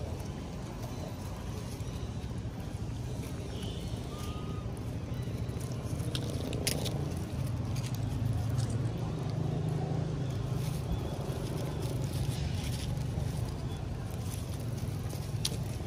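Steady low rumble, with a few short dry crackles of leaf litter as macaques move about close by, about six to seven seconds in and again near the end.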